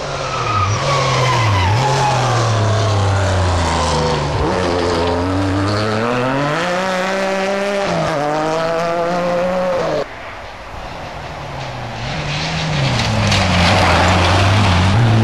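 Four-wheel-drive rally car engines revving hard, the pitch climbing and falling again and again through gear changes. About ten seconds in the sound drops abruptly, then another car's engine builds louder toward the end with a hiss of tyres on gravel.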